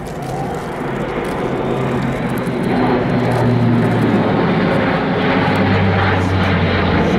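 Airbus A400M's four turboprop engines and eight-bladed propellers droning loudly as the transport passes low overhead. The sound grows louder over the first few seconds, and the drone drops in pitch about five seconds in as the aircraft goes past.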